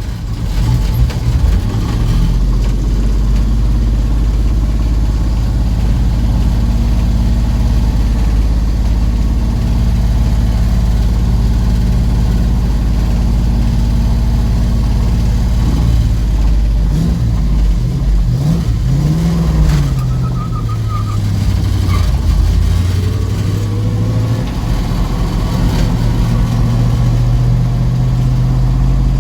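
1970 Mustang's engine idling steadily, revved briefly a few times about halfway through, then settling back to idle.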